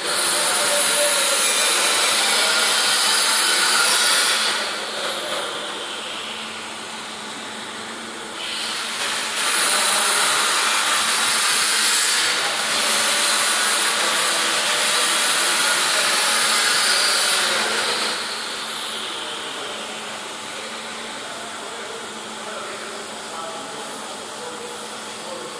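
Welding arc hissing steadily while the cap pass is laid on a pipe butt joint. It is louder for the first four seconds and again from about eight to seventeen seconds in, and quieter between and after.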